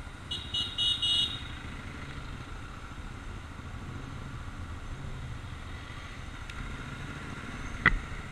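Motorcycle engine running with a steady low rumble. About four short, high-pitched beeps come in quick succession in the first second or so, and a single sharp knock comes near the end.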